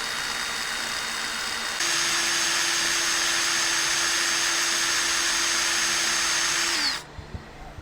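Electric drill with a 5/32 bit running steadily as it slowly drills into the plug over a carburetor's idle fuel-air mixture screw. The motor speeds up about two seconds in and winds down with a falling whine near the end.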